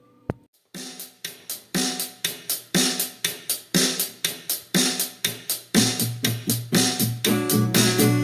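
A song begins on a drum-machine beat: a click, then even hi-hat ticks about four a second with a heavier drum hit once a second. About six seconds in, bass and guitar chords join the beat.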